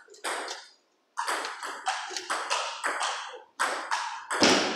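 Table tennis rallies: sharp clicks of the ball against rubber bats and bouncing on the tables, about three a second, from more than one table. There is a short pause just before the one-second mark and a duller, heavier knock near the end.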